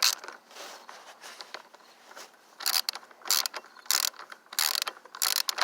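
Socket ratchet wrench clicking in a series of short strokes, a pause after the first second and then about one stroke every half second, as the scooter's reverse-threaded variator nut is worked loose.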